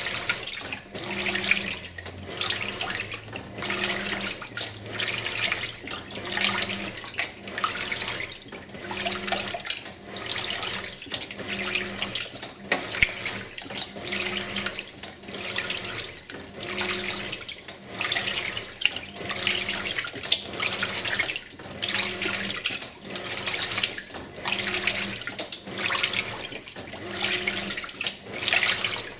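2001 Simpson Esprit 550 top-load washer agitating its load in water: surges of sloshing a little more than once a second, each with a low motor hum coming and going.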